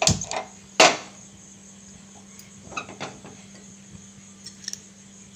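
Sharp clicks of a hand-held spark gas lighter lighting a gas stove burner, the loudest just under a second in, followed by a few faint knocks of metal cookware.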